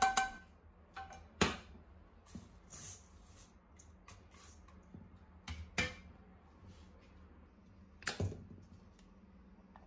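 Wooden spatula tapping and scraping against a stainless steel mixing bowl while dry toasted oats and chopped nuts are stirred. A few separate sharp knocks, the loudest about a second and a half in, near six seconds and about eight seconds in, with quiet between.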